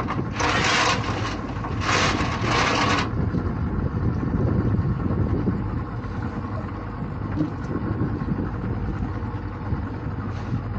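Small boat's outboard motor idling with a steady low rumble, with two bursts of rushing noise in the first three seconds.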